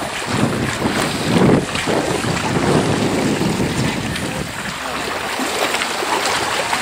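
Wind buffeting the microphone over lapping water: a steady rushing noise, with heavier rumbling gusts from about half a second to three and a half seconds in.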